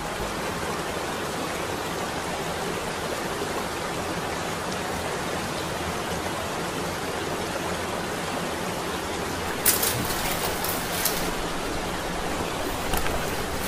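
Small waterfall splashing into a rock pool: a steady rush of falling water, with a few short sharp clicks about ten seconds in.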